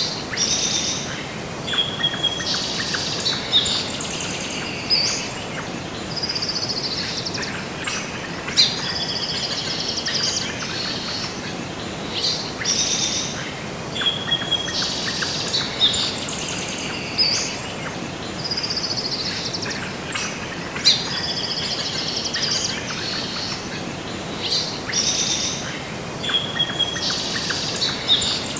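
Birds chirping and trilling over a steady background hiss, with the same run of calls repeating about every twelve seconds: a looped birdsong ambience track.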